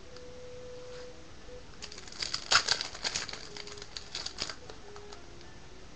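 Trading card packs and cards being handled: a short spell of crinkling and clicking, starting about two seconds in and stopping after about four and a half seconds.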